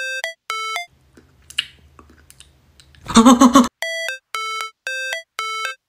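Electronic beeping melody of short, bright, doorbell-like synthesized notes, about three a second. The notes break off for a couple of seconds, with a low hum and then a loud, harsh noisy burst, and resume about three and a half seconds in.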